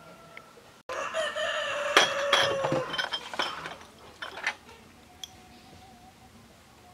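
A rooster crowing once, about a second in: one long call held for about two seconds and falling slightly at the end. A few sharp clicks land during and just after the crow.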